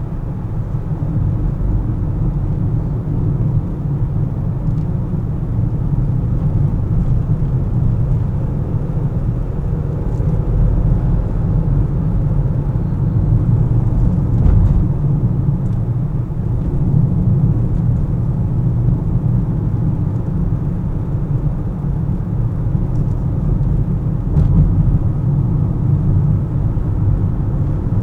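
Steady low rumble of a car driving: road and engine noise, with a few faint clicks.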